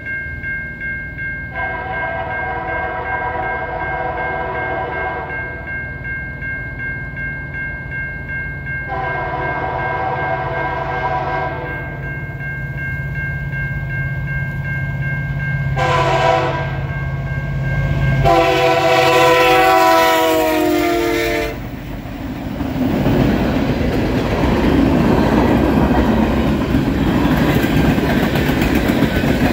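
Diesel freight locomotive horn sounding the grade-crossing signal: two long blasts, one short and a final long one, over the building rumble of the approaching locomotives. About 22 seconds in the locomotives pass, followed by the steady rumble and clatter of freight cars' wheels rolling on the rails.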